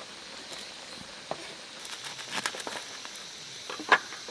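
A few light taps and clicks at irregular intervals over a faint steady hiss, the sharpest tap near the end.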